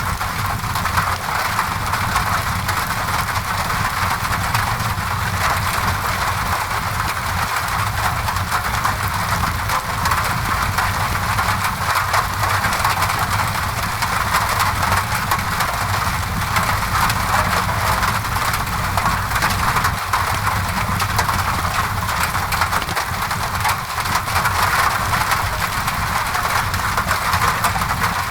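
Steady rain on a window mixed with a crackling fireplace: a constant rain hiss over a low rumble, dotted with small crackles and drips.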